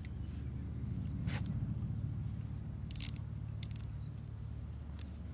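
Metal hand tools clicking and clinking a few times, the sharpest cluster about three seconds in, over a steady low hum.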